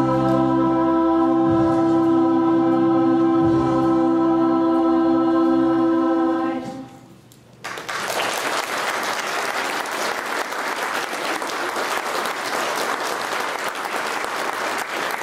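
Choir and band holding a final sustained chord for about six seconds, then cutting off. After a brief pause the audience applauds.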